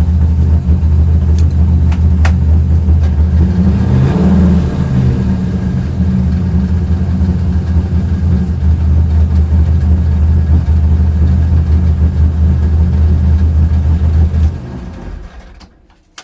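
Corvette engine running with a misfire, given a brief rev about four seconds in. It is switched off near the end and dies away.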